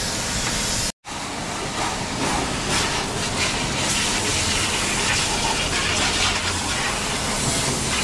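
High-pressure water jet spraying onto a car, a steady loud hiss, cut off by a split second of silence about a second in before it carries on.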